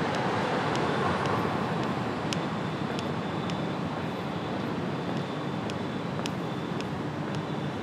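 City traffic noise: the rush of passing vehicles, loudest at the start and easing off slowly, with a faint steady high whine.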